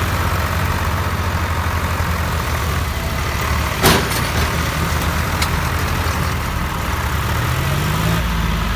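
Diesel engines of two tractors, a Swaraj 855 and a John Deere 5310, running hard under load as the Swaraj pulls the stuck Deere free, with the engine pitch shifting near the end. A single sharp knock, the loudest sound, comes about four seconds in.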